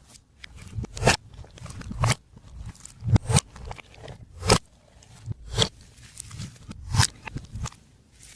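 Glossy slime being worked by hand, giving short sharp squelching pops about once a second with soft crackling between them.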